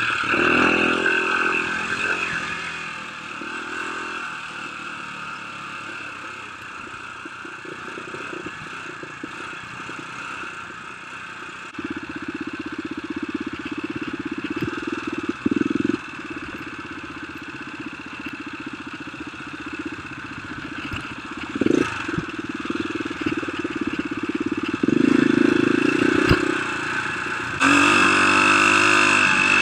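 Dirt bike engine running on a rough trail, its revs rising and falling with the throttle and getting louder near the end, with a few sharp knocks from the bike over the bumps.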